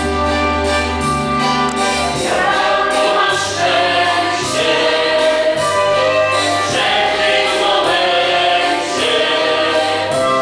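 Music with a choir singing long held chords that change every second or two over a steady bass line.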